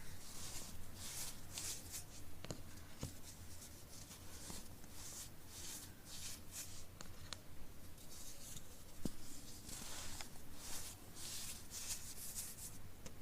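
A block of pressed powder being crushed by hand: a run of short, crumbly crunches at an uneven pace, with a few sharp little clicks among them.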